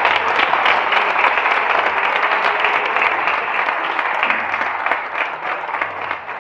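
A roomful of seated guests applauding: dense, continuous hand clapping that begins to thin out near the end.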